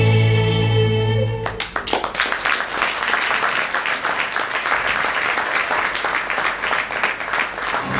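A choir of singers holds a final chord that stops about a second and a half in, followed by an audience applauding.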